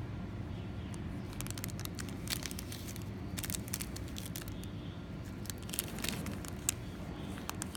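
Clear plastic packets of rubber bobber stops crinkling as they are handled and laid on a wooden table, in scattered short crackles over a steady low hum.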